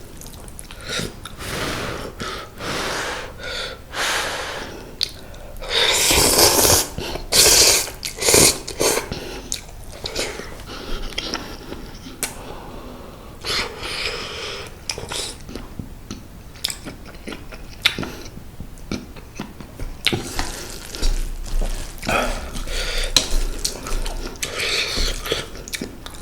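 Close-miked slurping and chewing of mala-tang ramen noodles that have soaked up their broth: a run of wet slurps with chewing in between, the two loudest and longest slurps about six and eight seconds in.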